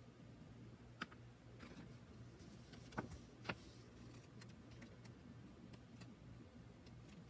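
Faint handling of a small paper guidebook: three light clicks and a few soft rustles and ticks over near silence.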